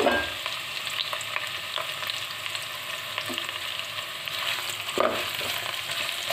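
Shredded cabbage and green capsicum sizzling in hot oil in a wok, freshly added and being sautéed. A spatula stirs them, with small scrapes and ticks against the pan over a steady sizzle.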